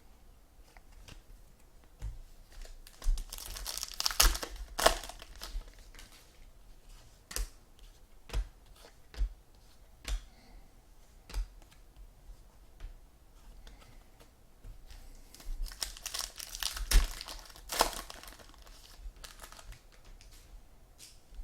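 Trading-card pack wrappers being torn open and crinkled, in two bursts, with scattered sharp taps and clicks of cards being handled and set down in between.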